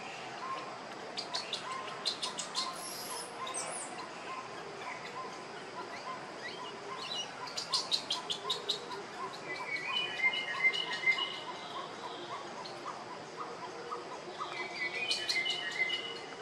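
Infant macaque crying in three bursts of rapid, high-pitched chirping squeals, the loudest about halfway through.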